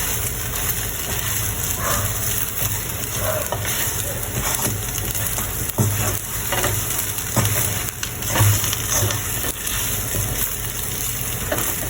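Chicken pieces frying in oil and spices in a pan, sizzling steadily, with short knocks and scrapes as the pan is stirred.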